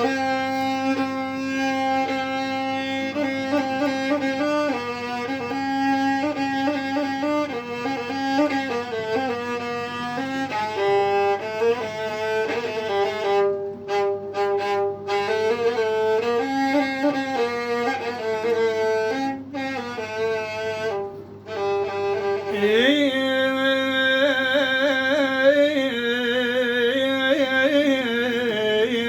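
Instrumental introduction to an Arabic song: a violin-like lead melody of held, wavering notes over a steady backing. About two-thirds of the way in it slides up into a brighter new phrase.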